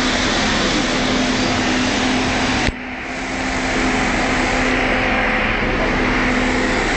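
Truck-mounted street sweeper running close by: a loud, steady whir of its engine and suction fan with a constant hum. About two and a half seconds in there is a click and the sound briefly drops before building back up.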